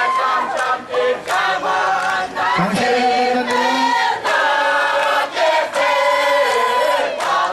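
A crowd singing together in chorus, holding long notes, with sharp hits cutting through the singing now and then.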